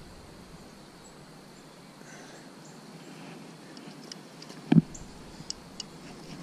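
Faint, even outdoor ambience by the river, broken about three-quarters of the way in by one sharp knock and then a couple of light ticks as a centerpin rod and reel are handled.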